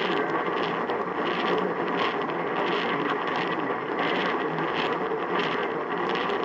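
Steady loud hiss of noisy radio reception, pulsing faintly about every two-thirds of a second.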